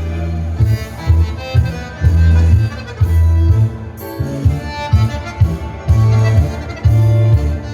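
Accordion-led dance music with violin and a strong, regularly pulsing bass line.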